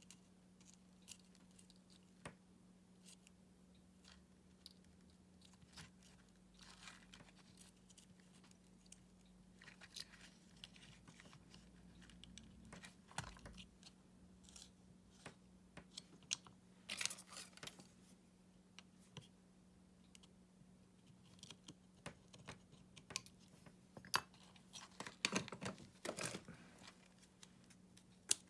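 Faint, scattered clicks, taps and rustles of small parts and tools being handled while a cordless screwdriver battery pack is taken apart, over a steady low hum. The handling grows busier partway through, with clusters of clicks near the middle and again near the end.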